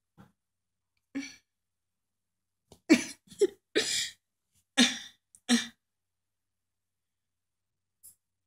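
A person coughing in a string of short, separate bursts, about six of them, a second or so apart.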